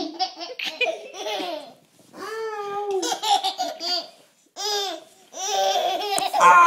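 A 14-month-old baby laughing in about four bouts of high-pitched giggles, broken by short pauses.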